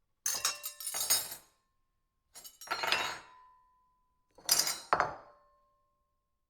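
Metal cutlery clinking and scraping against a ceramic plate in three quick clusters of strikes, the plate ringing briefly after each.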